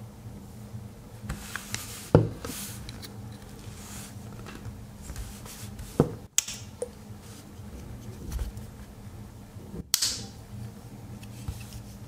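Three sharp metallic clicks, about four seconds apart, with light handling rustle between them, from the tools of a Victorinox Tinker Swiss Army knife being worked. The first click is the loudest.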